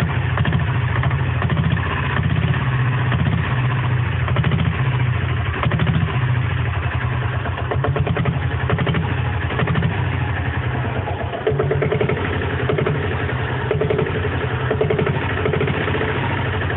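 Single-cylinder diesel engine of a Royal Enfield Bullet motorcycle running at a steady idle, its firing pulses coming rapid and even.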